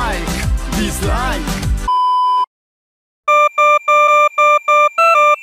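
Pop music with singing cuts off abruptly about two seconds in and gives way to a steady electronic test-tone beep. After a short silence comes a fast run of short electronic beeps, about three or four a second.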